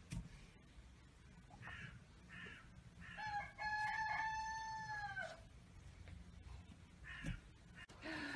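A rooster crowing once: a few short broken notes, then a long held note that drops in pitch at the end.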